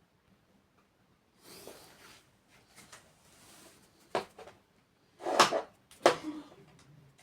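Objects and tools being handled on a workbench: rustling, then a few sharp knocks and clatters, the loudest about five and a half seconds in.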